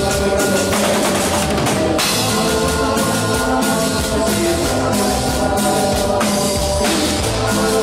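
Live band music with a drum kit, bass drum and snare, keeping a steady beat under held pitched notes.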